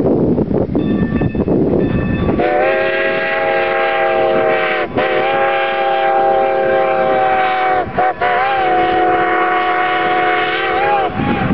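Steam whistle of Strasburg Rail Road No. 90, a Baldwin 2-10-0 steam locomotive, blowing two long blasts, a brief one and a final long one: the grade-crossing signal for the road ahead. Wind rumbles on the microphone before and after it.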